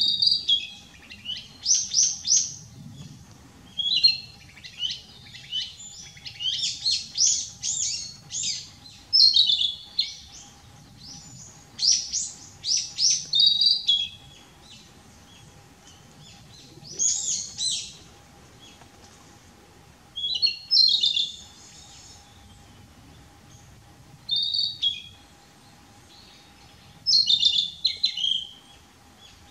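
Male Narcissus Flycatcher singing: loud, quick whistled phrases, run close together at first, then coming singly with pauses of a few seconds between them.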